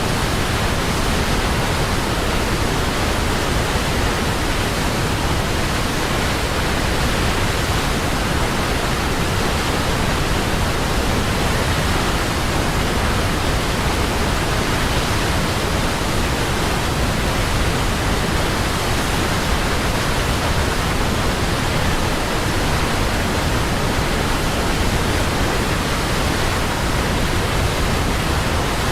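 Waterfall: falling water rushing in a steady, unbroken roar that stays even throughout.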